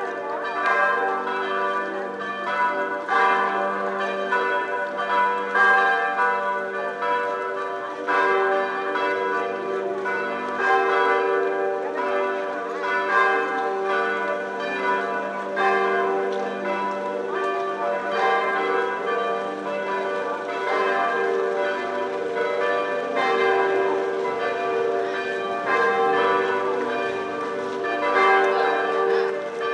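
Church bells pealing, repeated strikes with many overlapping ringing tones that carry on throughout.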